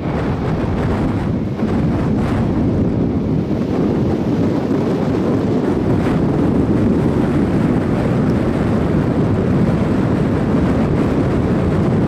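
Strong storm wind buffeting the microphone: a loud, steady rushing rumble with no distinct tones.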